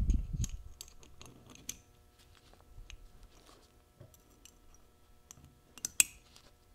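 Small metal clicks and taps from synchronizer keys, a key spring and the slider being handled and fitted into a Muncie 4-speed synchronizer hub. There is a dull thump at the start and a sharper click about six seconds in.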